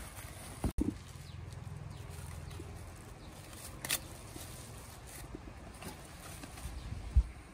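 Guavas in white plastic bags being handled over a wheelbarrow: a brief crinkle of plastic about four seconds in and a few soft knocks of fruit, the loudest near the end.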